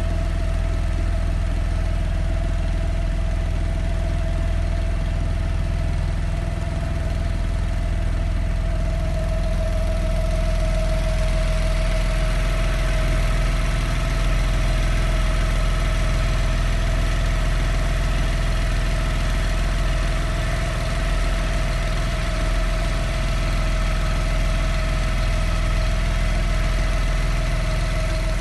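Single-cylinder four-stroke 7 HP outboard motor running steadily, getting a little louder from about ten seconds in.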